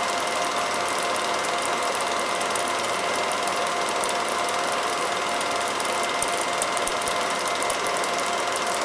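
Home-movie film projector running, a steady mechanical whirr with fast, even clicking from the film advance mechanism.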